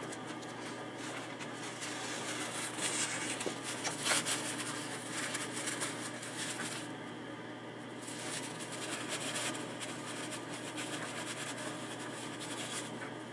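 Faint rustling and rubbing of clothing as a person moves and crouches right beside the microphone, over a steady low hum.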